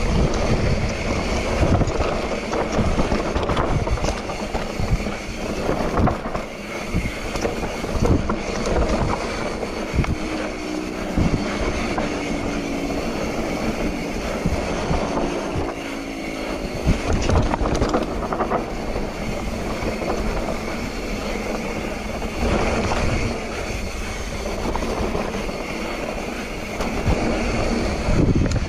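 Mountain bike riding fast down a dirt trail: wind buffeting the microphone over the sound of tyres on loose dirt, with frequent knocks and clatter from the bike as it hits bumps.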